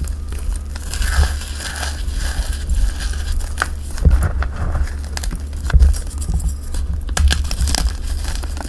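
Dyed gym chalk and cornstarch being crushed and crumbled by hand: irregular crackling with scattered sharper cracks, over a low rumble of handling.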